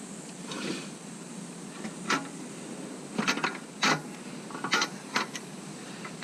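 Irregular clinks and knocks of hand tools and bolts being handled while a motorcycle bash plate is fitted, about half a dozen short knocks with the louder ones in the second half.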